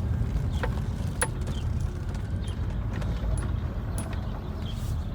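A few sharp metallic clicks and clinks of hand tools, the clearest about a second in, over a steady low rumble.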